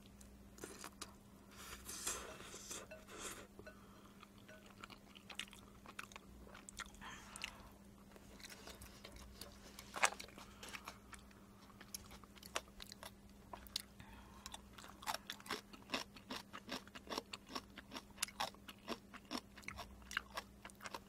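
Close-miked eating of jjajang Buldak stir-fried instant noodles: a slurp of noodles about two seconds in, then chewing with quick clicks that come several a second near the end.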